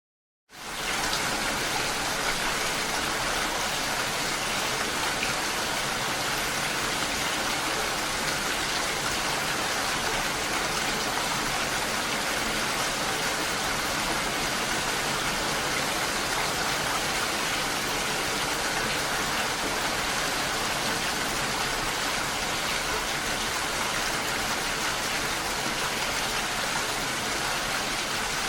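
Steady, even rain, coming back in after a half-second drop to silence at the start.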